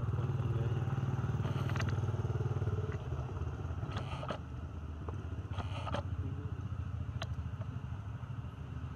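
A motor engine running steadily, louder for the first three seconds and then lower, with a few short sharp clicks and scrapes over it.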